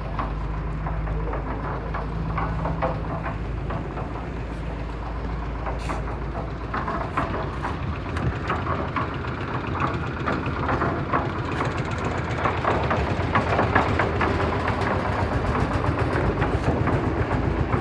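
Heavy diesel machinery running at a construction site, a steady low engine rumble with frequent clattering and knocking over it, growing busier and a little louder about halfway through.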